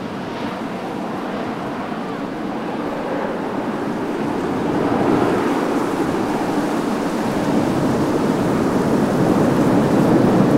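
Jet engine noise from a landing Boeing 737-800, its CFM56-7B turbofans heard as a steady rushing rumble that grows gradually louder.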